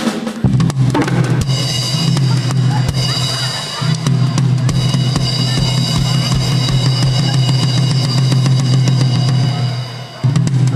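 Background music driven by a drum kit, with a rapid run of bass drum, snare and cymbal hits over a steady low bass line.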